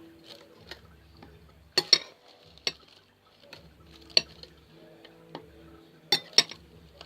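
Slime with washing-powder water being stirred in a container with a utensil: sharp clicks and knocks of the utensil against the container, a pair about two seconds in and another pair near the end, between softer scraping ticks.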